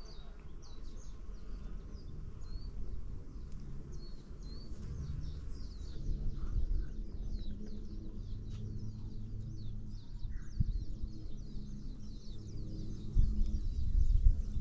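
Birds chirping in quick runs of short high notes, over a low rumble and an on-and-off low hum of bees buzzing around the flowers. Louder low thumps come in near the end.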